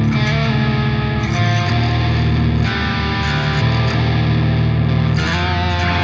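Drumless progressive metal backing track at 95 BPM: distorted electric guitars playing a riff with no drums.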